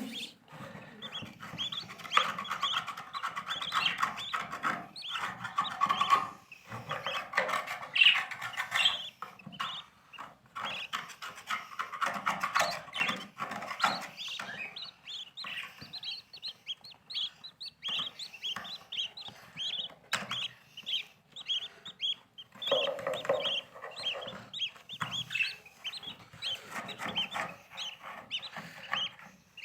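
Lovebirds chattering: a dense flock of short, overlapping chirps, with scattered clicks and knocks.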